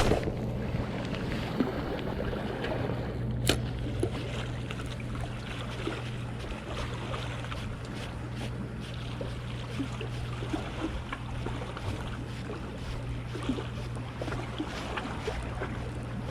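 Steady low hum under wind and water noise, with scattered small ticks and one sharp click about three and a half seconds in.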